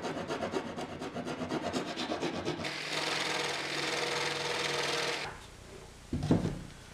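Hand rasp filing the edge of a cut-out in a plywood board in quick rhythmic strokes. About three seconds in, a jigsaw cuts in the hole for about two seconds. Near the end comes a knock as the electric hand planer's casing is set into the hole to check its fit.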